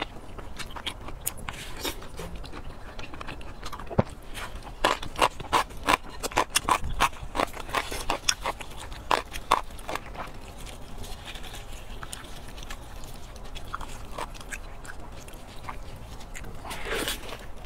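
Close-miked chewing and biting of red-braised fatty pork. A dense run of sharp smacks and clicks comes between about four and ten seconds in, as gloved hands pull apart a braised pork knuckle.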